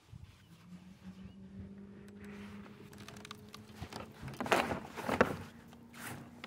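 A steady low hum, with two sharp knocks of fishing gear being handled in a kayak about four and a half and five seconds in.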